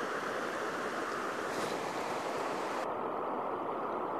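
Steady rush of river water pouring over a low weir, an even, unbroken roar of white water.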